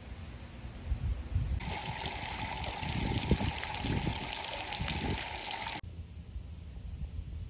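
Water flowing in a steady hiss that starts abruptly about one and a half seconds in and cuts off abruptly about four seconds later.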